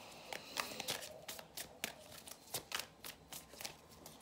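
A deck of tarot cards being shuffled by hand: an irregular run of crisp card clicks and slaps, about three or four a second.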